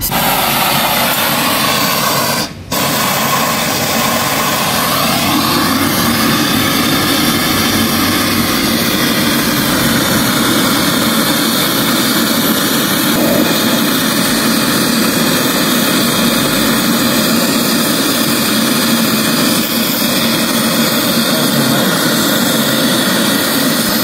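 Brazing torch burning steadily with a loud hiss while brazing a refrigerator's high-pressure refrigerant line. The hiss briefly drops out about two and a half seconds in.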